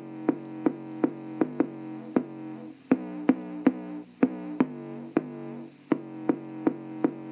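Electronic bass-test music with a synthesizer bass line and a drum-machine beat, played through the small built-in speaker of an Orion VHS/CRT TV combo. The sharp beats come about three a second, and the deepest bass is missing.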